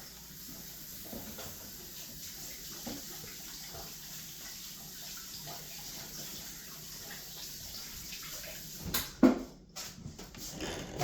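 Kitchen sink tap running steadily while hands are washed under it, then a sharp knock about nine seconds in, followed by a few smaller clatters.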